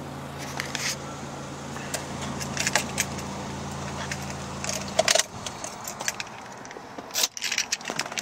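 2001 Acura 1.7 EL's 1.7-litre four-cylinder engine idling steadily, then switched off about five seconds in. Keys jangle and click in the ignition around the shut-off.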